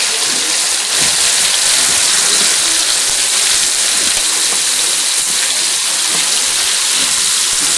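Cornmeal-and-flour-breaded alligator pieces deep-frying in hot oil in a wok: a loud, steady sizzle.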